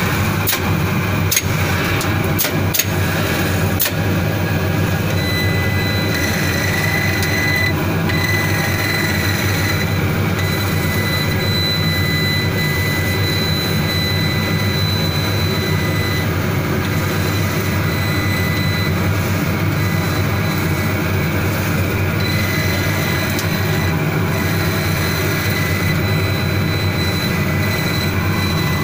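SpeedLight SL-1150M laser cutting machine running while it cuts corrugated cardboard: a steady loud machine noise, with a few sharp clicks in the first four seconds and a thin high whine that comes and goes from about five seconds in.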